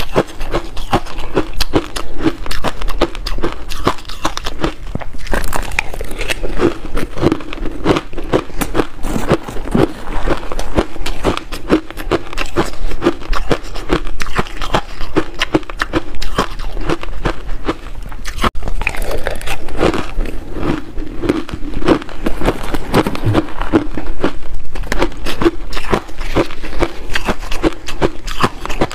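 Close-miked chewing of frozen matcha-powder ice: a dense, continuous run of crisp crackling crunches as the ice breaks between the teeth.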